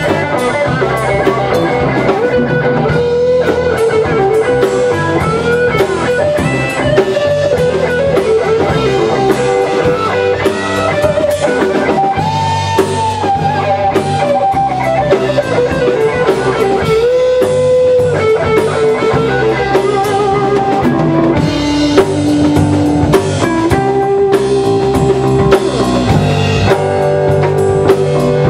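Live rock band playing an instrumental passage on two electric guitars and a drum kit. A lead guitar line with bent, held notes runs over the rhythm guitar and drums.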